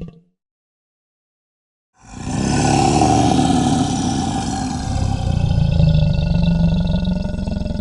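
Fan-made Albertosaurus roar sound effect, mixed from pitch-shifted crocodilian, movie-monster and T. rex roars: after about two seconds of silence, one long, deep, rumbling roar lasting about six seconds.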